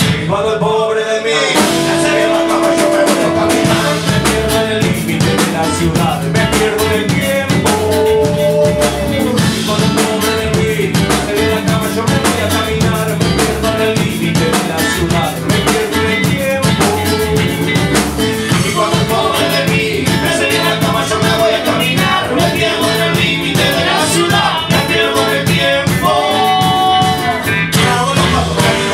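Live ska-reggae band playing: drum kit and guitars under a horn section of trombone and saxophone playing held notes, with a short break in the drums and bass just after the start.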